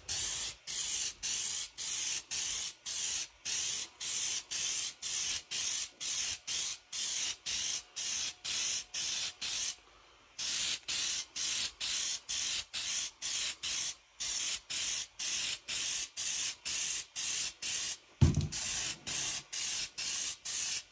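Aerosol spray can of Enduramark laser marking powder being sprayed in short, quick puffs, about three a second, laying a thin coat on ceramic tiles; there are two brief pauses and one thump shortly before the end.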